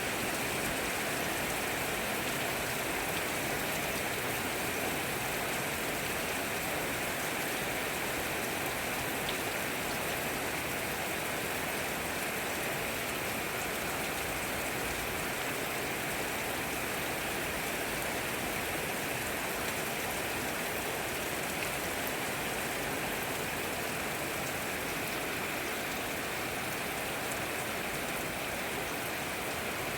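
Steady rain falling, an even hiss of drops that neither builds nor eases.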